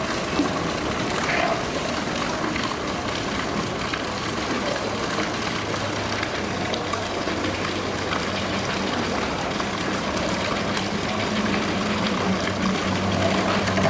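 Steady rush of running water, with a low, even machine hum joining about halfway through.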